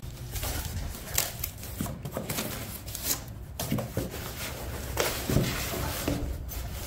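Cardboard box flaps being opened and a black padded case pulled out of the box: irregular rustling and scraping of cardboard with soft knocks, over a low steady rumble.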